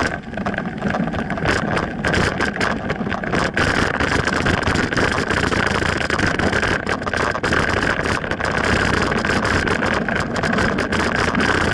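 Wind and road noise on a bicycle-mounted camera while riding: constant rushing with frequent knocks and rattles from bumps in the path, over a steady high whine.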